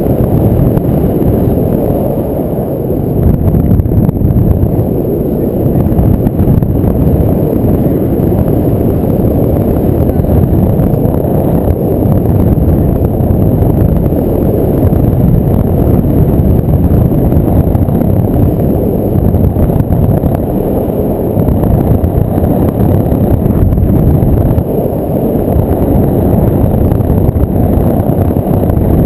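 Wind rushing over a camera microphone in paraglider flight: a loud, steady, low rumbling that swells and eases slightly.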